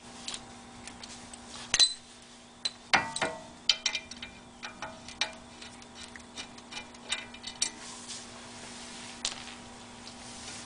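Scattered light metallic clicks and ticks of a hand tool working the brake rotor's retaining screw out of the wheel hub, at irregular intervals over a faint steady hum.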